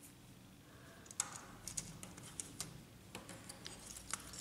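Light, irregular clicks and taps of plastic and metal as the lower fuser roller, with its gear and bushings, is fitted into an HP LaserJet P1102 fuser frame. The clicks start about a second in, with the sharpest at the start of the run and near the end.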